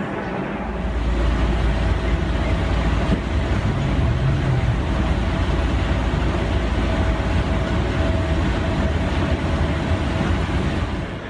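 Moving walkway running: a steady low rumble that starts about a second in, with a faint thin whine.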